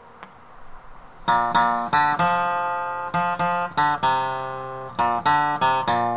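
Acoustic guitar strumming chords in a steady rhythm as the song's intro, starting a little over a second in after a faint hiss.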